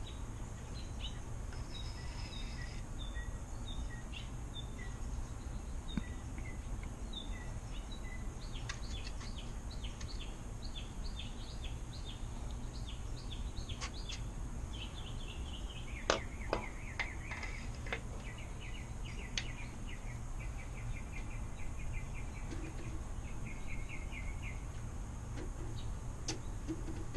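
Small birds chirping and trilling over a steady low rumble of outdoor background noise, with a few light clicks a bit past halfway.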